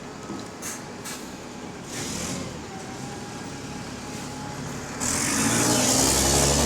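Bus diesel engine running at a stop, then about five seconds in it suddenly gets much louder with a broad hiss and a rising engine note as the bus pulls away.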